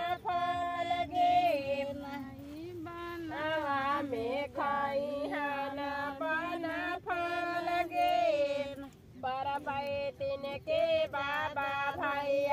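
Girls and women singing a Karma song together in their own voices, holding and bending long notes in short sung phrases with brief pauses between them, without drums.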